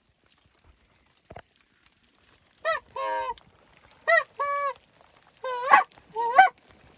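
Goose honking: four loud two-part honks, each a short bent note followed by a longer, steadier one.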